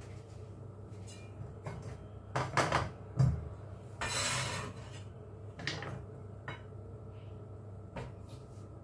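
A few separate knocks and taps of a Chinese cleaver and cut carrot sticks on a cutting board, the loudest about three seconds in. About four seconds in there is a short scrape as the blade slides across the board to gather the carrots.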